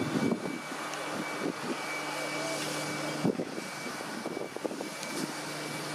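Steam and diesel locomotives: a steady engine drone with a faint high whine, broken by irregular soft puffs and thumps. The loudest comes about three seconds in.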